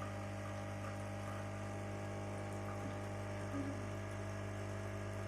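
Vibratory pump of a QF-CM831V Nespresso-compatible capsule coffee machine running steadily with a low hum while brewing, with the faint patter of coffee running into the cup.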